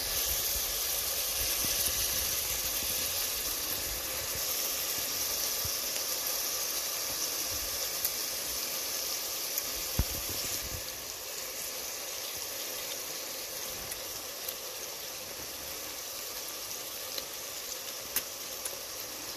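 Diced chicken and potatoes frying in oil in a pot: a steady hissing sizzle that eases a little about halfway through. There are a few sharp little clicks, the loudest about halfway through.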